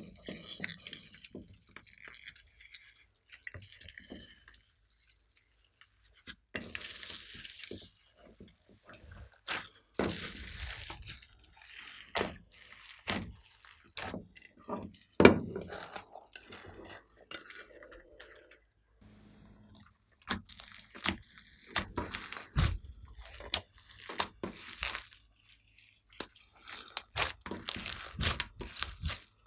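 Hands squishing and stretching clear slime, making irregular sharp clicks, pops and crackles.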